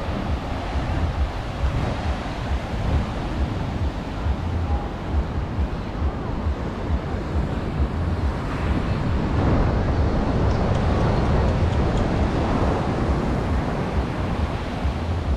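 Surf breaking on a beach, with wind buffeting the microphone. A wave swells louder about eight seconds in.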